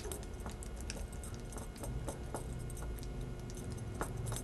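A silicone spatula stirring mayonnaise and harissa in a small glass bowl: soft scraping with irregular light clicks as it knocks against the glass.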